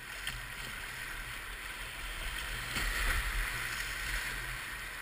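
Steady rush of moving river water, swelling briefly about three seconds in.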